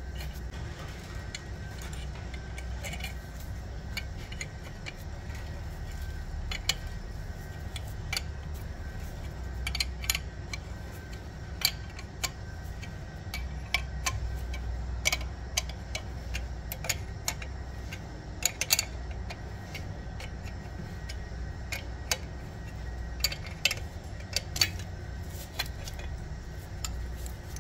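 Scattered metallic clicks and clinks of a bearing puller being set into a flywheel's pilot needle bearing and turned with an open-end spanner, over a steady low hum.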